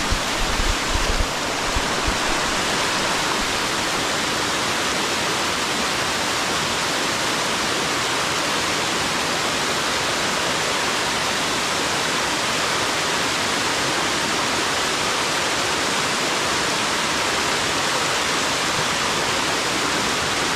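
Waterfall rushing steadily, close to the microphone. There are a few low thumps on the microphone in the first second or so.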